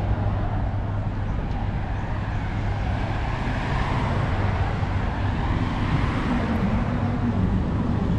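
Steady city street traffic noise: a continuous low rumble of cars on a wide road, with a car approaching.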